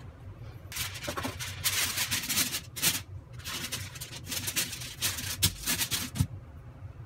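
Aluminium foil crinkling in uneven bursts as a sheet is unfolded and smoothed flat by hand, starting about a second in.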